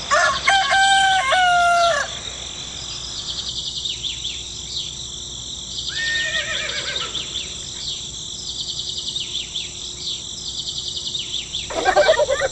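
A rooster crowing once, loud, for about two seconds, then small birds chirping on and off. Near the end there is a burst of rapid, repeated calls.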